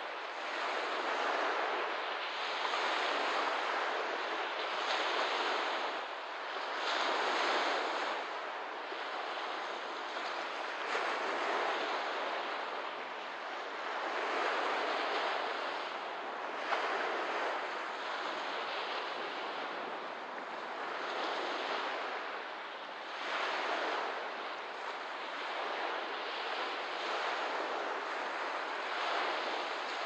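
Small waves lapping on a lakeshore, each wash swelling and easing every two to three seconds.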